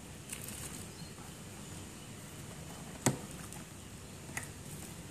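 Light handling of a small blue plastic-and-rubber part with a black knob as fingers move it on a hard surface. There is one sharp click about three seconds in, and softer ticks near the start and near the end.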